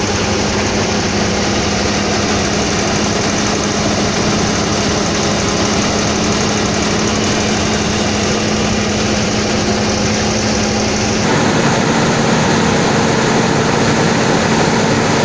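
Motorhome engine running steadily, with a steady hum over a loud even noise; it steps slightly louder about eleven seconds in.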